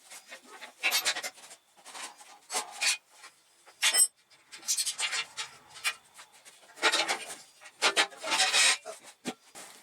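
Irregular scraping and rubbing of metal bike parts being handled and shifted, with knocks and a brief metallic ring about four seconds in.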